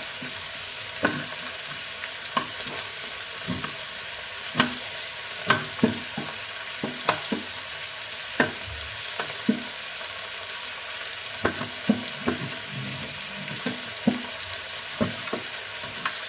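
Diced potatoes frying in oil in an iron kadai with a steady sizzle. Over it come irregular sharp knife taps on a steel plate as red onion is cut beside the stove.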